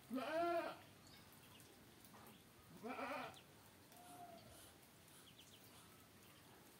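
Two drawn-out animal calls, each rising and then falling in pitch over about half a second, one at the start and one about three seconds in, with a fainter short call a second later.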